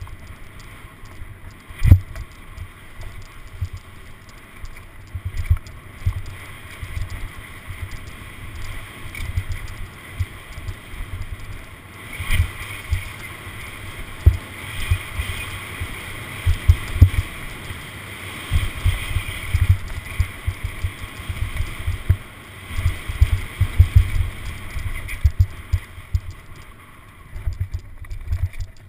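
Downhill mountain bike descending a rough dirt trail: frequent sharp thumps and knocks as the bike hits bumps and roots, denser in the second half, over a steady rush of tyre and wind noise that swells for several seconds in the middle.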